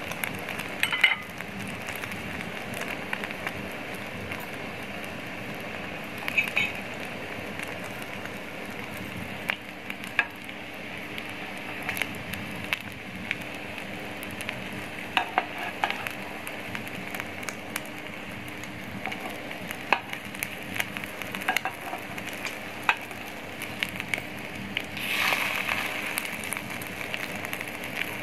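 Shami kababs frying in beef fat in a metal pan: a steady sizzle with scattered sharp pops, swelling louder near the end. A steel spoon clinks and scrapes against the pan as the patties are turned.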